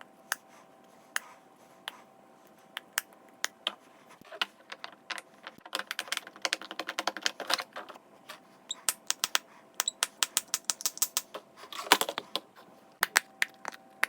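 Plastic fidget toys being clicked and tapped: sharp separate clicks, spaced out at first, then quick flurries, with the loudest cluster near the end.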